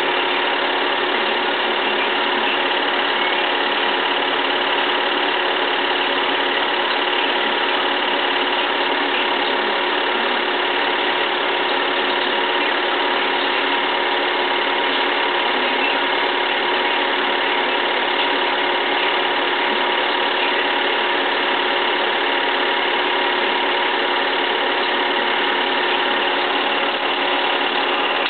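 Film projector running: a steady mechanical whir with several constant tones that does not change.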